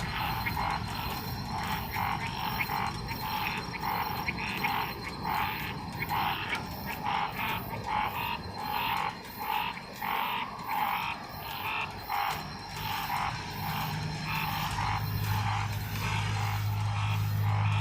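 Chorus of tree frogs calling, overlapping croaking calls repeating irregularly, a little under two a second, over a steady high thin whine. A low steady hum comes in over the last few seconds.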